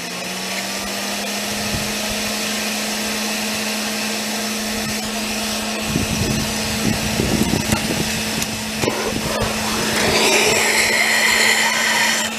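Small electric gasifier blower spinning up and then running with a steady hum. Some knocks and handling noise come in the middle, and from about ten seconds in a propane torch hisses loudly as it is held to the gasifier to light it.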